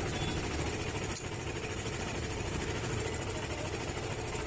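A small engine idling steadily, with a fine, even rapid beat.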